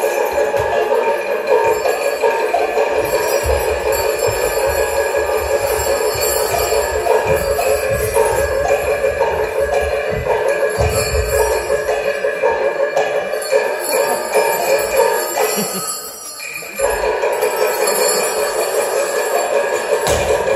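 Chinese lion dance accompaniment: a drum beating under clashing, ringing cymbals, loud and continuous, with a brief drop in level about sixteen seconds in.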